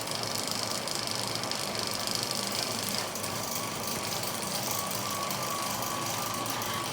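Two small surplus window motors turning the sawmill's threaded lead screws, running steadily at maximum speed. A faint wavering whine joins the steady whir about three seconds in.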